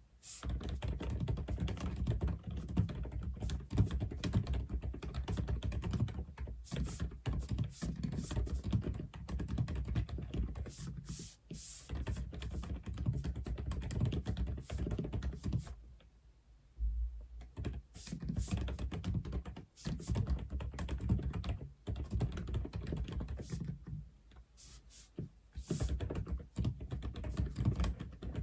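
Typing on an Aula F87 mechanical keyboard: fast, continuous keystrokes with a few short pauses.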